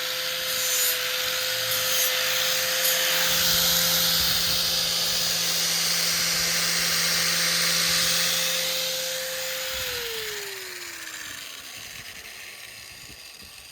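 Small electric grinding tool sharpening the steel edge of a Glock folding survival shovel: a steady motor whine with the rasp of grinding on the blade, then the motor is switched off about ten seconds in and its whine falls away as it spins down.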